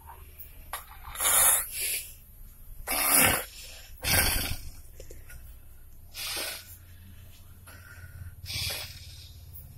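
A person snoring: about six loud, noisy snorting breaths at irregular gaps, over a steady low hum.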